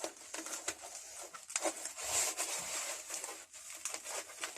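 Soft scratchy rustling and small clicks of hands handling layered Shadowfoam liner foam as cut pieces are peeled out, with a longer soft scrape about two seconds in.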